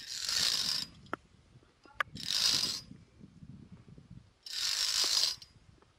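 Via ferrata lanyard carabiners scraping along the twisted steel safety cable, three rasps about two seconds apart, with a couple of short metallic clicks between them.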